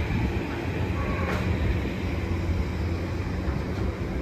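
Container freight train running past a platform: a steady low rumble of loaded container wagons rolling over the rails, with one short sharp click about a second in.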